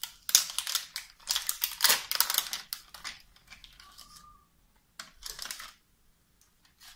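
Peel-open sterile medical packaging being torn open and handled: crisp crinkling and rustling of paper and plastic wrappers, strongest in the first three seconds, with another short rustle about five seconds in.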